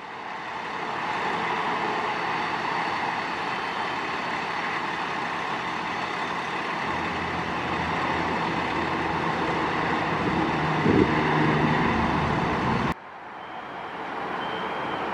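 Fire truck's engine running with a steady drone. There is a short louder sound about eleven seconds in, and the sound drops off suddenly near the end before building back up more quietly.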